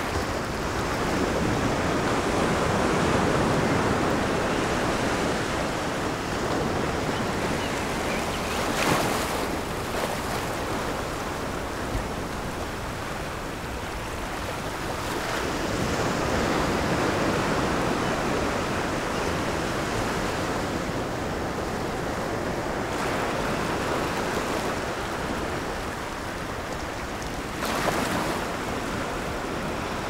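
Ocean surf: waves breaking and washing in continuously, swelling and easing over several seconds. There is a sharper crash about a third of the way in and another near the end.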